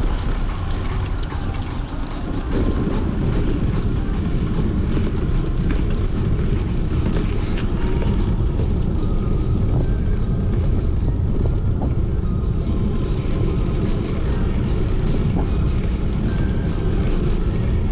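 Steady low rumble of wind buffeting an action camera's microphone while riding a bicycle.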